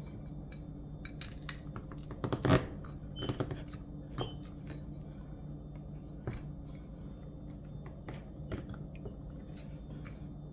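A ceramic plate handled and pressed down on fried plantain slices on a wooden cutting board: a few scattered soft knocks and clinks, the loudest about two and a half seconds in, over a steady low hum.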